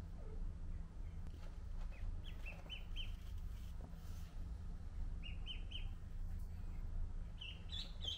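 Ducklings peeping: short high peeps in quick runs of three or four, heard three times, over a steady low hum.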